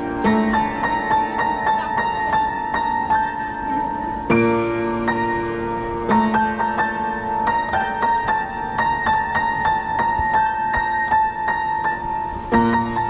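Kawai upright piano played: a quick, evenly repeated figure of high notes over held bass chords that change every few seconds.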